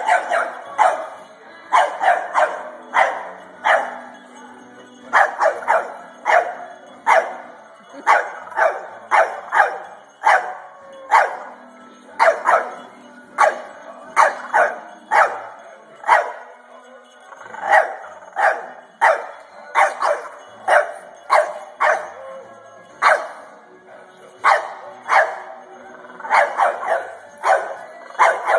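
French bulldog puppy barking over and over in quick clusters of two to four barks at a singing plush toy dog, whose song plays underneath. The barking is the pup's wary, confused reaction to the toy.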